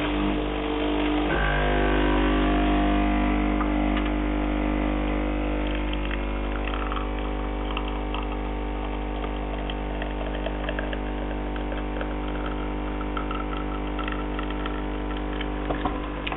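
Miele built-in Nespresso espresso machine brewing: its pump runs with a steady hum, the tone shifting about a second in, while coffee streams into a cup. Faint crackling and sputtering sounds join from about six seconds in.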